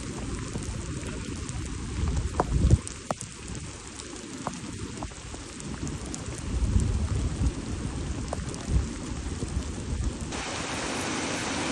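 Heavy rain pouring steadily, with uneven low rumbles that come and go. Near the end the rain's hiss turns louder and more even.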